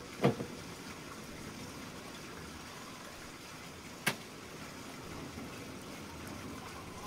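Dull thud with a short ringing tail as a mass of pizza dough is set down on a large round tray, then a single sharp knock about four seconds in, over a steady low hiss.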